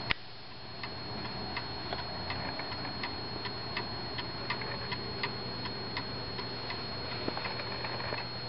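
Warmink cabinet clock's mechanical pendulum movement ticking steadily, about four ticks every three seconds. A single sharp knock comes right at the start.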